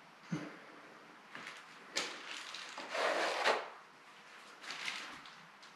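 Metal drywall knife scraping and knocking while joint compound is spread along a wall corner: quiet short scrapes and knocks, a sharp knock about two seconds in and a longer scrape about three seconds in.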